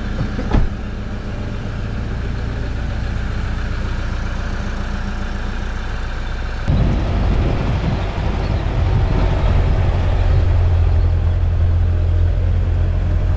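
Vehicle engine idling steadily, with a sharp knock about half a second in. About halfway through the sound turns suddenly louder and rougher, with a strong low hum.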